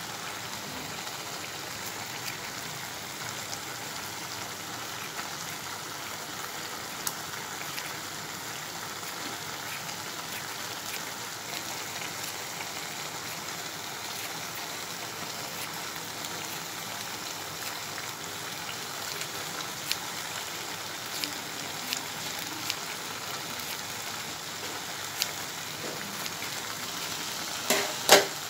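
Beef mince simmering in its own juices in a non-stick frying pan, a steady wet sizzle and bubbling, with scattered light clicks and a couple of louder knocks near the end.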